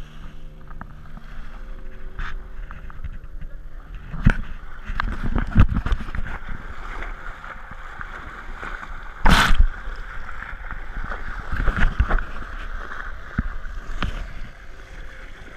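Water sloshing and splashing close to an action camera held at the waterline beside a small motorboat, with scattered knocks and one loud splash-like burst about nine seconds in.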